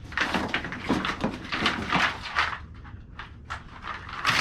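Packaging and parts of a boxed greenhouse shelf kit being handled: a dense run of rustles, scrapes and knocks for the first couple of seconds, quieter for a moment, then another sharp clatter near the end.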